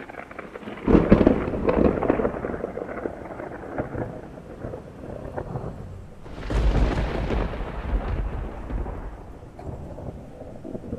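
Thunder: two peals, the first breaking about a second in and rumbling away over several seconds, the second cracking in about six seconds in and rolling off toward the end.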